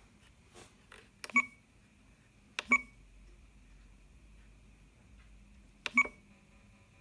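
FrSky Horus X12S radio transmitter's button presses: three sharp clicks, each with a short beep from its speaker, about a second in, near three seconds and near six seconds. A faint steady high tone hangs on between the beeps.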